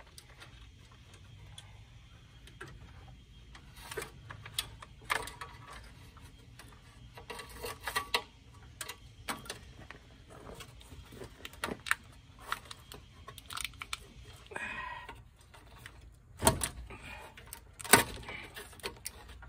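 Scattered small metallic clicks, rattles and knocks as wiring and small parts are worked loose from a stripped car front clip. Two sharper knocks near the end are the loudest.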